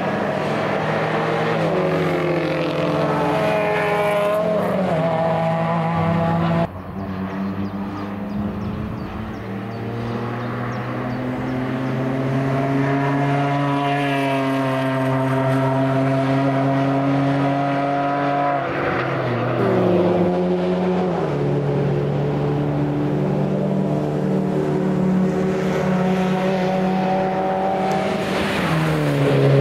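Racing cars' engines pulling hard on the circuit, several cars in turn, the engine note climbing with the revs and dropping in steps at the gear changes. The sound changes abruptly about seven seconds in, and the pitch falls sharply around two-thirds of the way through.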